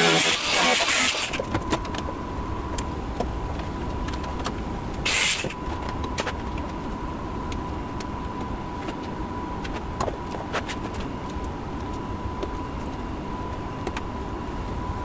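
Guitar background music cuts off about a second in, leaving workshop room noise: a steady high hum and low rumble with scattered light clicks and knocks of metal being handled, and one short hiss-like burst about five seconds in.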